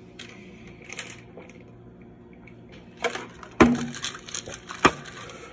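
Plastic supplement bottles handled and knocked against a stone countertop: several sharp knocks, the loudest about three and a half seconds in.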